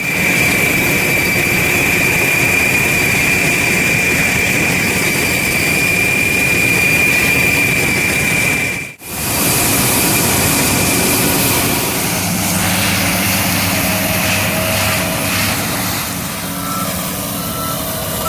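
Large farm machinery running loudly and steadily, with a high steady whine over the engine noise for the first half. After a cut about halfway, a second stretch of machine noise follows, with short repeated beeps near the end.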